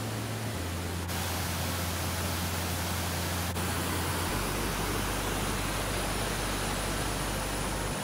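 Waterfall cascading over rock: a steady rush of falling water, shifting slightly in tone about a second in and again about three and a half seconds in.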